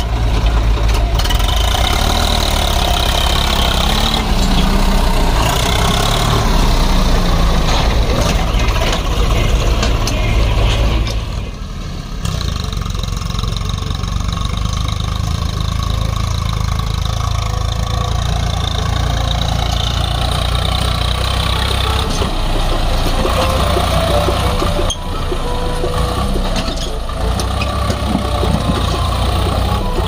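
Diesel engines of a JCB 3DX backhoe loader and a Swaraj 744 FE tractor running steadily while the backhoe loads mud, with a brief drop in level about twelve seconds in.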